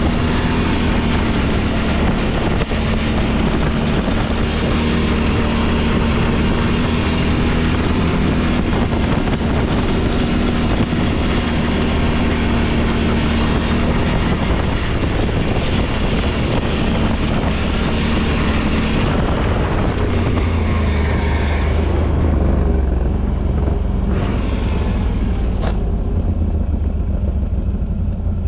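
Off-road vehicle's engine running steadily under way, with a dense rushing noise from the ride, after being switched back to its gentler eco mode. The rushing noise eases about three-quarters of the way through.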